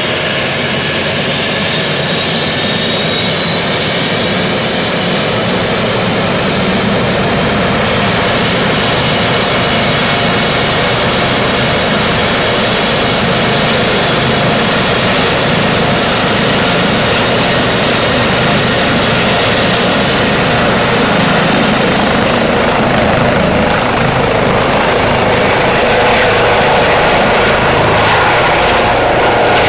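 Rescue helicopter's turbine engines and rotor running loudly with a steady high whine. About two-thirds of the way in the whine rises in pitch as the helicopter powers up and lifts off, and it grows louder near the end as it climbs overhead.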